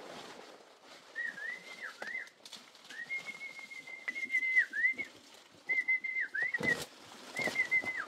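A high whistled call in four phrases, each a held note broken by quick downward dips. Near the end, two sharp crunches of footsteps in dry leaves.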